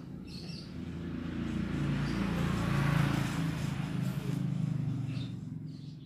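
A passing motor vehicle, its sound swelling to a peak about halfway and fading again over a steady low hum, with a few short bird chirps near the start and the end.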